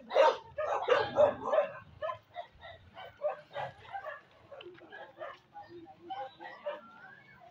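Dog barking and yipping in a quick run of short calls, loudest in the first two seconds, then thinning out to scattered quieter yips.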